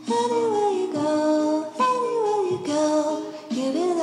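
Background music: a slow melody sung by a woman, with notes held about a second each that slide downward, over steady lower tones.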